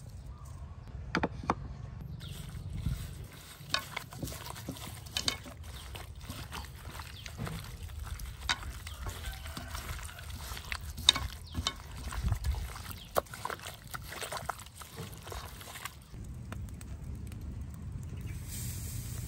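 Wet squelching and scattered clicks of a gloved hand mixing pieces of water snake with an oily chili-garlic marinade in a metal wok. Near the end a high hiss starts as the snake goes onto the charcoal grill.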